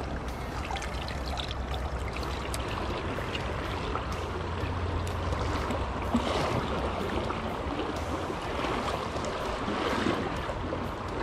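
River current flowing steadily, an even rushing water sound with light scattered ticks.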